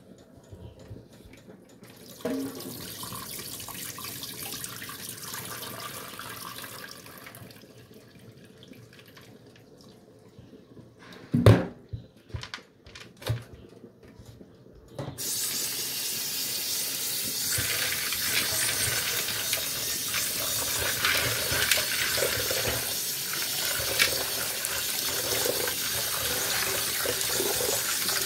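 Kitchen tap running into a bowl of split fava beans in a steel sink while a hand swishes and rubs them clean in the water. A sharp knock comes about eleven seconds in, then the tap runs fuller and steadier from about fifteen seconds on.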